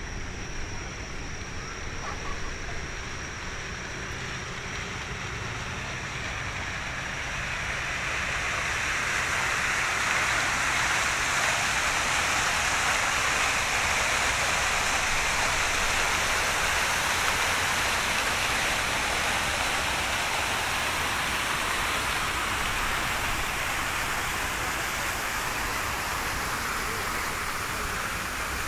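Fountain jets splashing into their basin: a steady rush of water that swells about a quarter of the way in, is loudest around the middle, and eases off toward the end.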